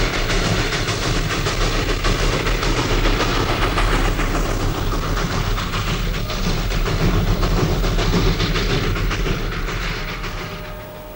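A train running along the track, its wheels clattering over the rail joints, fading away near the end.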